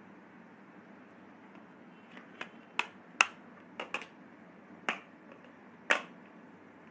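A series of about seven sharp clicks and taps between about two and six seconds in, the loudest two near the middle and near the end. They come from makeup cases and products being picked up, opened and put down.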